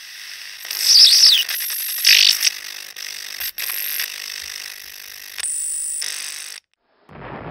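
Intro logo sound effects under hiss and static. A falling squeal comes about a second in, a louder noisy burst near two seconds, then two sharp clicks. A steadier high hum cuts off suddenly near the end, and a low rumbling noise begins just before the end.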